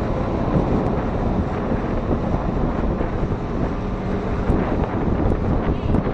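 Wind buffeting the microphone on a moving motorized outrigger boat (bangka), over the steady drone of its engine and the rush of water spraying along the outrigger.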